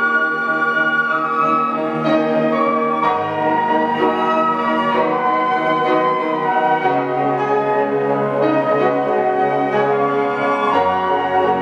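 Flute ensemble playing slow, held chords, the harmony changing three times a few seconds apart.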